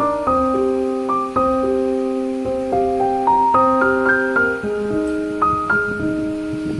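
Background piano music: a slow melody of single struck notes over lower held notes.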